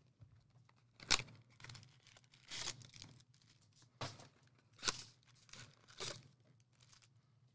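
Wrapping on a box of baseball trading-card packs being torn and crinkled open in about six separate rips. The sharpest comes about a second in, and a longer rip follows at two and a half to three seconds.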